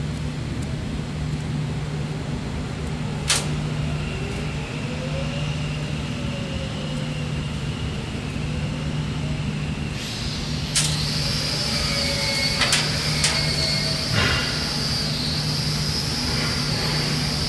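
Skid steer engine running steadily, with a few sharp knocks. About ten seconds in, a high, steady hydraulic whine sets in.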